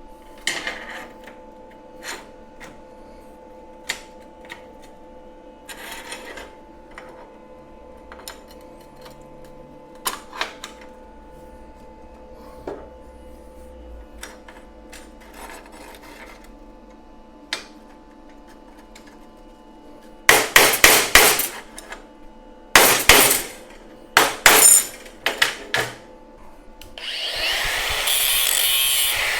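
Steel parts clink and knock now and then as they are handled, then about two-thirds through come a run of short, loud crackling bursts, typical of MIG tack welds on the steel bolster plates, followed near the end by a longer continuous harsh burst.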